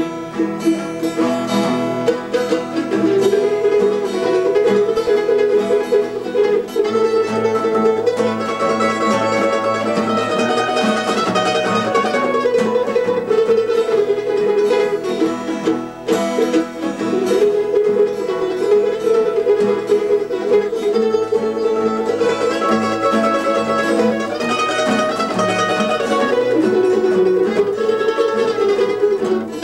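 Instrumental break of a country song: plucked string instruments play a melody over a steady accompaniment, with no singing.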